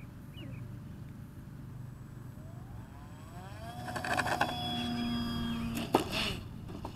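RC model airplane's motor and propeller spooling up with a rising whine, then running at a steady high whine for about two seconds. Near the end comes a sharp crack and the whine cuts off as the plane noses over on its takeoff roll.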